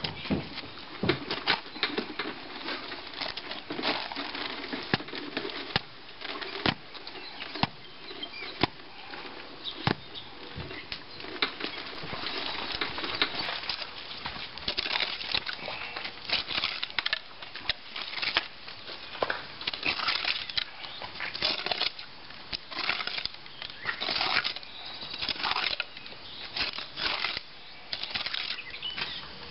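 A spade, then a long-handled hoe, chopping and scraping through waterlogged mud to dig a drainage trench. The sound is a run of irregular sharp strikes in the wet soil with squelching, scraping drags between them.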